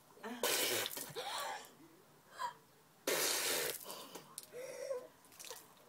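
A person coughing and gasping for breath with a mouth full of ground cinnamon, the dry powder catching in the throat. There are several harsh, breathy bursts: about half a second in, about a second and a half in, and about three seconds in, with smaller gasps between.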